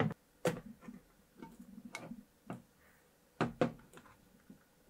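Metal clicks and taps from a finger working at the ring-pull tab of a canned yellow peach tin that is hard to pry open; about half a dozen irregular clicks, the loudest pair about three and a half seconds in.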